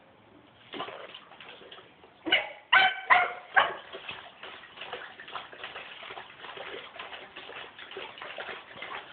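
A dog splashing and dunking its head in a plastic tub of water, with a run of irregular sloshing and splashing. Partway through it gives four short, high yips in quick succession, the loudest sounds.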